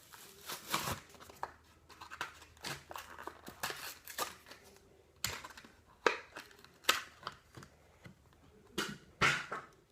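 A Hot Wheels blister package of plastic and cardboard being opened, giving irregular crinkles, snaps and scrapes, with sharper clicks about five, six, seven and nine seconds in.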